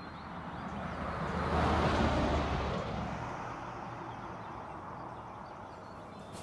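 A rushing noise that swells to its loudest about two seconds in and then slowly dies away, over a steady low rumble.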